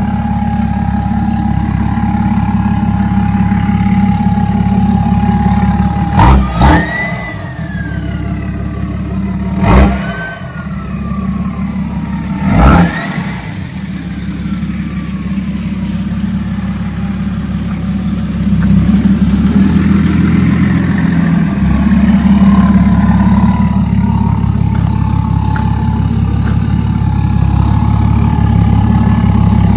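Deleted BMW X5 diesel engine, running through a delete downpipe, idling with a steady turbo whistle, then revved sharply three times; after each blip the turbo whistle falls away in pitch as it spools down, and later a further slow falling whistle runs over the idle.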